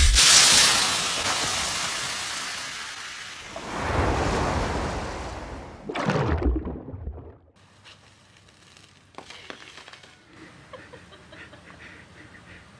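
Diet Coke and Mentos eruption: a sudden loud fizzing rush as the foaming cola jets out of the bottle, fading over a few seconds. The rushing swells again about four seconds in and once more near six seconds, then stops.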